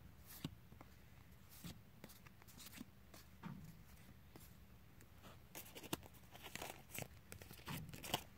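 Battle Spirits trading cards being flicked through by hand and slid against one another: soft card-on-card rustles and light clicks, busier in the second half.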